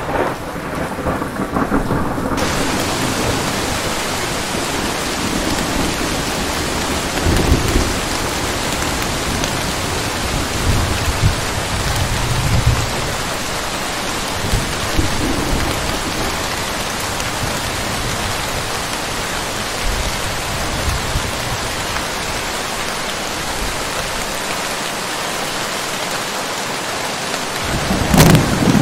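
Steady heavy rain hissing, with thunder rumbling low several times. A sudden loud thunderclap comes near the end.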